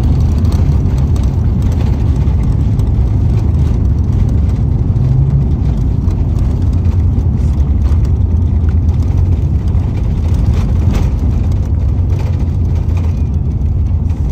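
Steady, loud low rumble inside a jet airliner's cabin during the landing roll on a wet runway: engine and rolling noise as the aircraft slows with its spoilers raised.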